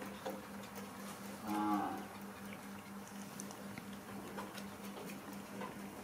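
A single short, low pitched call lasting about half a second, about a second and a half in, over a steady low hum and a few faint clicks.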